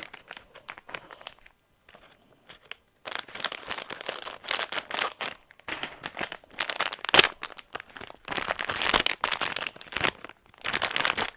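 Plastic toy packaging being torn and pulled open by hand, crinkling in repeated bursts with short pauses between them.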